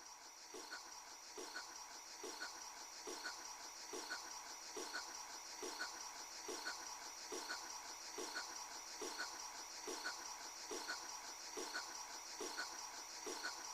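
Faint night-time cricket chorus: a steady high trill with a lower chirp repeating a little more than once a second.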